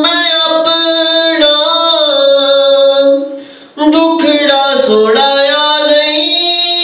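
A man singing a naat unaccompanied into a handheld microphone, in long drawn-out, ornamented phrases. There is a brief pause for breath a little past the middle.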